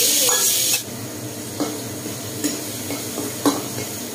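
Cubed tofu frying in hot oil in a wok: a loud sizzle that cuts off suddenly under a second in, then a quieter sizzle as a spatula stirs, knocking and scraping against the wok several times, loudest about three and a half seconds in.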